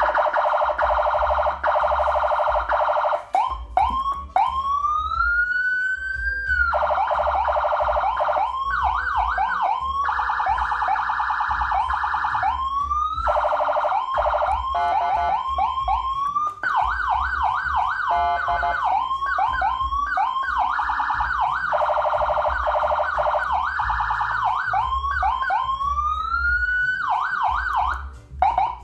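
Electronic siren cycling through its tones: fast warbling stretches, a slow rising wail about four seconds in and again near the end, and quick alternating yelps in between.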